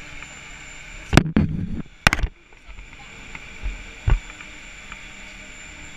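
A chairlift's metal safety bar being pulled down: a loud clank about a second in, a rattle, then a second clank as it comes to rest. Lighter knocks follow, over the steady hum of the lift station's machinery.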